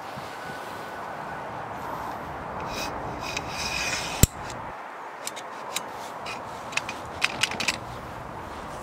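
Metal tent poles scraping and rubbing as the sections are slid together, ending in one sharp click a little over four seconds in, followed by a few lighter ticks.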